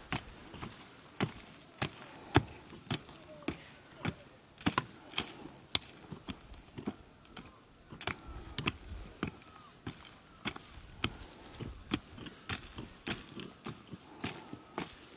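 A series of sharp, irregular knocks, one to three a second, the loudest a little over two seconds in.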